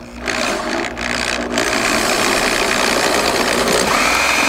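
Power drill spinning a hole saw against the wall of a plastic rainwater cistern, enlarging an existing hole. The saw is run backwards to get the cut started where there is no pilot hole for its point. Steady loud grinding and motor noise, with a higher steady whine coming in about four seconds in.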